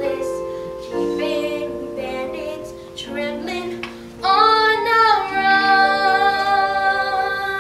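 A child singing a musical-theatre song over instrumental accompaniment, rising to a loud, long held note about four seconds in.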